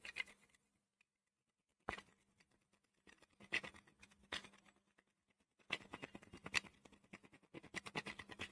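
Faint, intermittent scratching: a Dairy Milk chocolate bar rubbed against a perforated steel strainer, grating crumbs onto a cake. There are a few single strokes in the first half, then a quicker run of strokes near the end.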